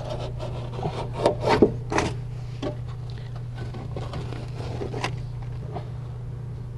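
A hand blade slicing through headliner material and the material rustling as the excess is trimmed off, in irregular short rasping strokes, the loudest about one to two seconds in.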